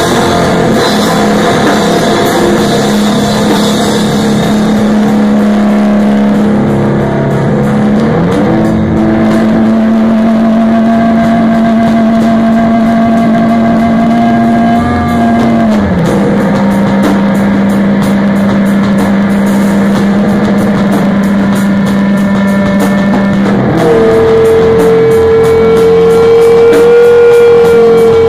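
Rock music: loud, droning held notes that slide to a new pitch about every eight seconds, with a higher held note taking over near the end.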